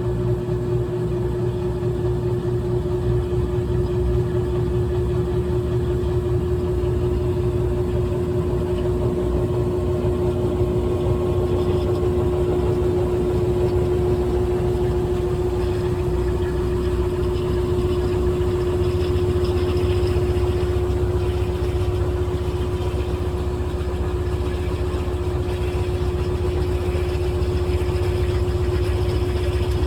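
GE top-load washing machine running mid-cycle: a steady motor hum with one constant tone over a low rumble.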